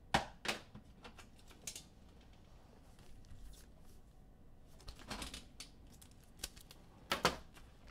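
Computer keyboard typing in short scattered runs of light clicks, a few near the start and two quick clusters about five and seven seconds in.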